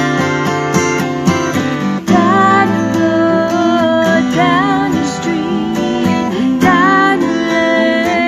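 Two acoustic guitars strummed together in a steady rhythm, with a woman singing long, sliding notes over them from about two seconds in.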